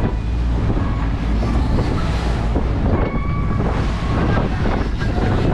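Steady wind rumble on the microphone over water rushing past the hull of a boat under way.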